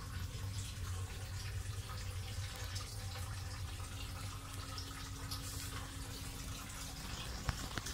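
Greenhouse watering system running: water trickling over a steady low hum, with the hum's higher tone fading near the end and a couple of faint clicks.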